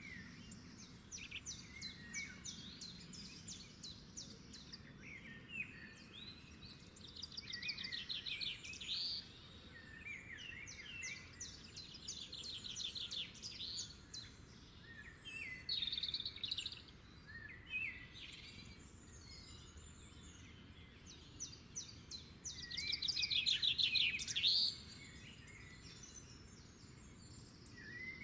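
Songbirds chirping and singing in quick trills, one phrase after another, over faint background noise; the loudest trilling comes near the end.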